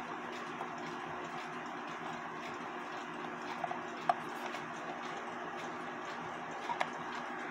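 A few light metallic clicks of a small wrench working the nut off a cuckoo clock's nighttime shut-off, one sharper than the rest about four seconds in and a close pair near the end, over a steady background hum.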